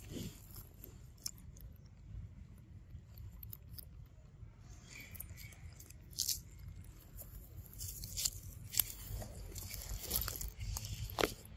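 Baby monkey suckling at its mother's teat: faint wet smacks and clicks, with a few sharper crackles, over a low steady rumble.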